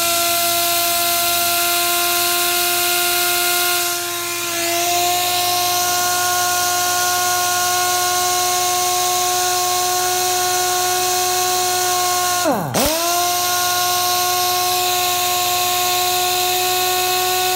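Central Pneumatic 1-inch pistol-grip air impact wrench free-spinning with no load, a loud, steady high whine at full speed. About twelve seconds in the pitch drops sharply for a moment, then climbs back to full speed. The wrench holds its speed, a sign that the air supply is keeping up with it.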